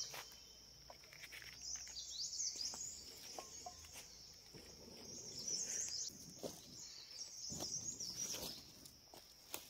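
Birds chirping in short, sliding calls over a steady high-pitched insect drone, with a few faint clicks and knocks.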